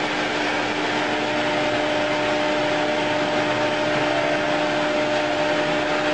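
Prototype electromagnetic motor running steadily: an even whirring noise with a constant hum underneath.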